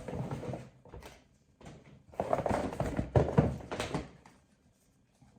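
Product packaging and items being handled: rustling with knocks, briefly at the start and louder from about two to four seconds in.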